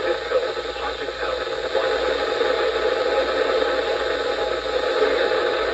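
Radio receiver static: a steady hiss with faint, garbled voice-like sounds mixed in.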